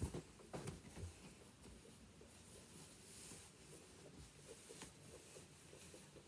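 Near silence in a small room: faint rustling of clothing and a few soft knocks in the first second or so, from someone getting dressed.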